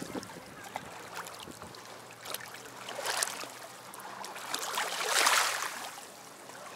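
Small sea waves lapping and washing over rocks and pebbles at the water's edge, swelling twice, with the loudest wash a little after five seconds in.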